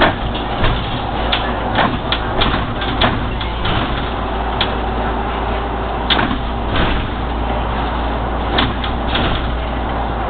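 Inside a SOR city bus on the move: the engine runs with a steady low drone while the cabin fittings rattle and knock in frequent short sharp clicks, thickest in the first few seconds and again a little past halfway.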